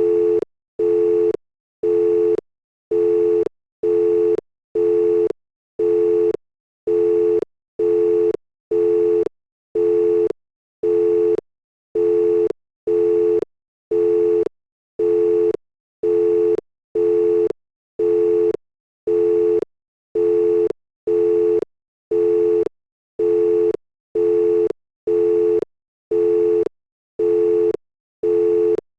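Telephone line tone beeping steadily: short beeps of a low, even electronic tone, about one a second, each lasting about half a second with equal gaps between.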